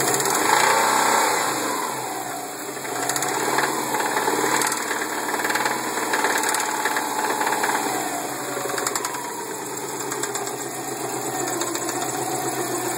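2002 Subaru WRX's turbocharged flat-four engine idling and revved in several short blips, with knocking from a spun bearing.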